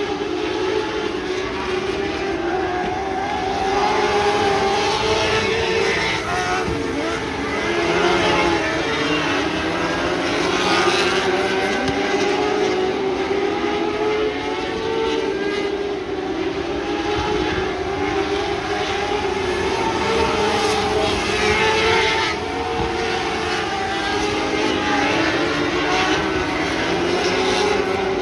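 Several lightning sprint car engines running hard together at high revs, their pitches wavering up and down and swelling in loudness every few seconds as the cars pass.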